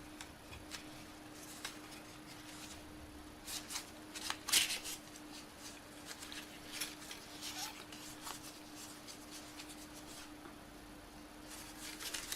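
Faint rustling and light tapping of paper and cardboard phone-box packaging being handled, loudest about four and a half seconds in, over a faint steady hum.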